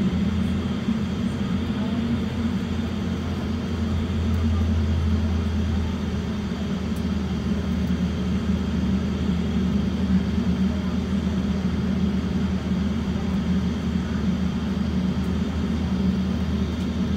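Steady low cabin drone inside an Airbus A350 taxiing, its Rolls-Royce Trent XWB engines running at idle thrust.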